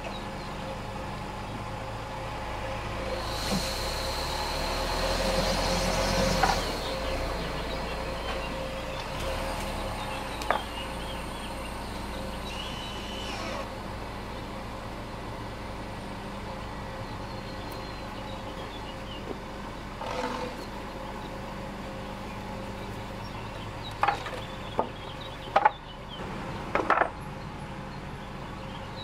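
Car engine running while the car is moved back from the tire, rising for a few seconds a little after the start, then settling to a steady run. Near the end come several sharp knocks of a wooden board being set down on the driveway.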